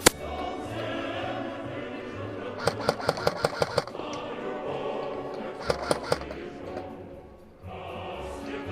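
Airsoft guns firing in rapid bursts of sharp clicks: a run of about eight to ten shots in roughly a second a little under three seconds in, and a few more just before six seconds. Music with singing plays throughout.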